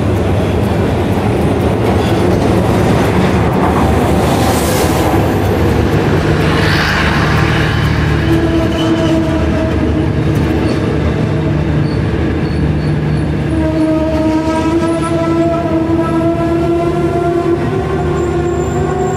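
Passenger train pulling into a station, its carriages rolling slowly past close by with a steady low rumble. From about eight seconds in, a long drawn-out pitched squeal comes from the slowing train and lasts to the end.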